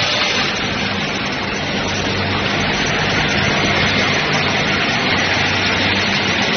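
Steady industrial noise of an automated pressure-cooker production line running: the machine stations and motors make a constant hiss with a low hum beneath it.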